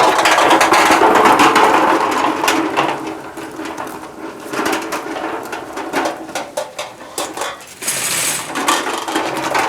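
Firewood crackling and hissing as it burns in a stainless-steel drum-washer tub fire pit, with dense rushing noise and many sharp pops. The rush is loudest in the first two seconds and flares again with a hiss about eight seconds in.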